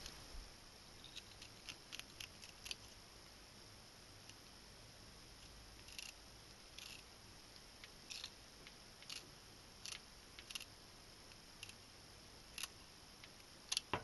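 Kitchen scissors snipping out the backbone of a small split-open dace, a series of faint, irregularly spaced clicks as the blades cut through the bone.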